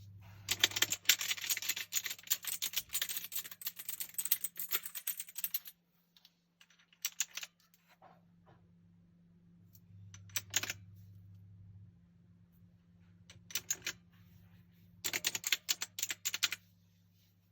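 Crack K660 mechanical gaming keyboard being typed on. A fast run of keystrokes lasts about five seconds, then come short bursts of a few keys, and a final flurry comes near the end.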